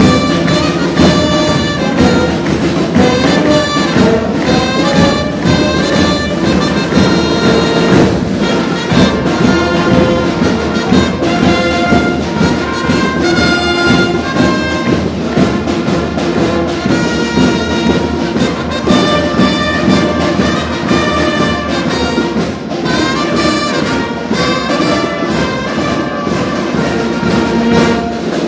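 Small street band playing a tune: trumpets and saxophone over snare drum, bass drum and cymbal.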